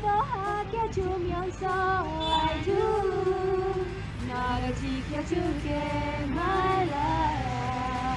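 Group of women singing a melody together, holding long notes.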